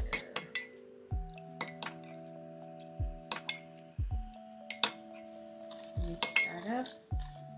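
Metal measuring spoon clinking against a stainless steel mixing bowl in short clinks, then a wire whisk scraping and stirring sauce in the bowl near the end.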